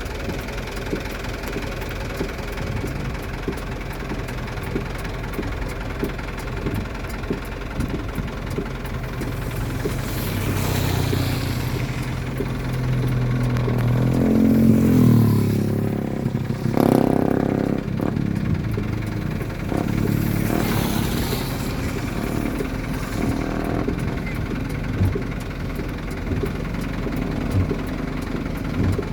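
Motor vehicle engines running steadily, with louder vehicles passing between about 10 and 22 seconds in, one rising in pitch around 14 to 15 seconds.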